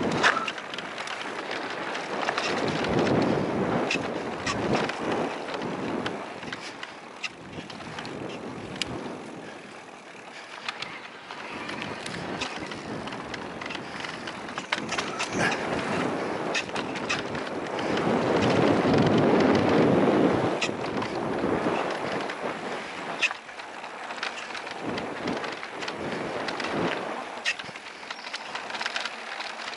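Haibike Xduro Nduro electric mountain bike riding fast down a dirt trail: a rush of wind and tires on dirt that swells and fades, loudest about two-thirds of the way through, with frequent sharp rattles and clicks from the bike over bumps.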